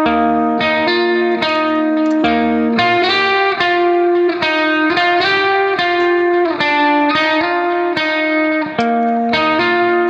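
Background music: plucked guitar playing a steady run of notes.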